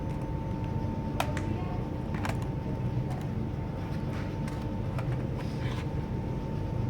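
Scattered small, sharp clicks and taps from handling parts of a laptop under repair, irregular and about a second apart, over a steady low rumble with a faint steady tone.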